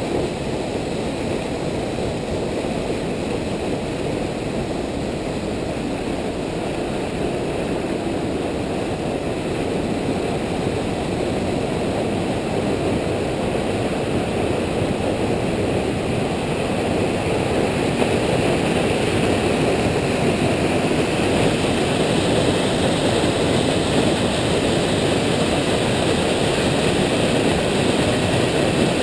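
Steady roar of water cascading down the stepped stone spillway of the New Croton Dam, growing louder about two-thirds of the way in.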